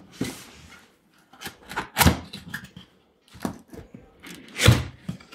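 Cardboard box being opened by hand: its lid and flaps rub and knock in a string of short scrapes and thuds, with a sharp knock about two seconds in and the loudest thud near the end.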